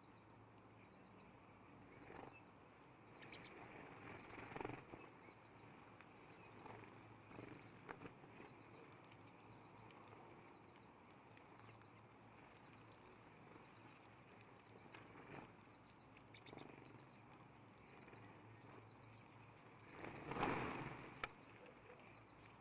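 Faint scattered rustles and taps of birds moving about on a feeder, over a quiet outdoor background, with one louder rustle and a sharp click near the end.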